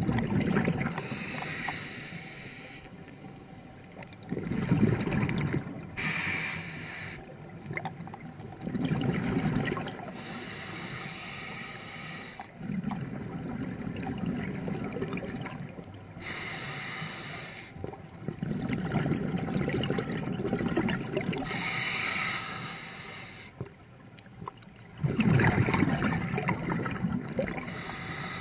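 Scuba diver breathing through a regulator underwater: each exhalation is a burst of bubbling, and between them the inhalations hiss through the demand valve, about six breaths at a slow, even pace.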